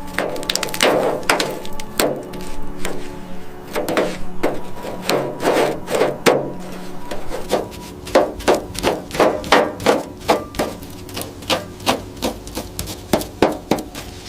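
Hand-tool work: repeated scraping and knocking strokes, irregular at first, then about two a second in the second half.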